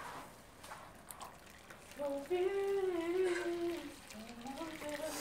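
Water poured from a shaker cup into a frying pan of browned beef and onions. From about two seconds in, a person hums a tune over the pour, louder than the water.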